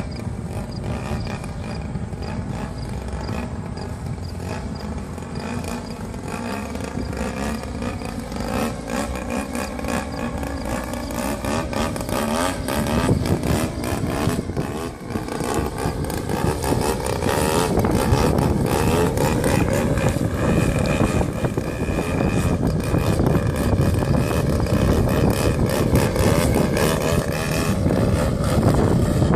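Yak 54 3D RC airplane's 60cc DLE two-stroke gasoline engine and propeller running in flight, the pitch gliding slowly up and down with the throttle and getting louder about halfway through.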